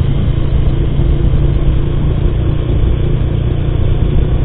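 Bajaj Pulsar motorcycle engine running steadily while riding, with a loud, low wind rumble on the helmet-mounted microphone.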